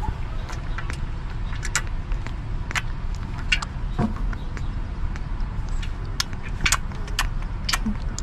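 Baby monkey lapping milk from a metal tray: irregular, sharp, wet clicks and smacks of its mouth, roughly one or two a second, over a steady low rumble.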